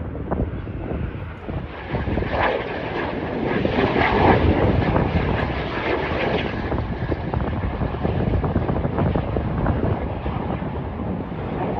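Jet aircraft flying past in an airshow display, a loud rushing engine noise that swells about two seconds in and peaks around four seconds, with wind buffeting the microphone.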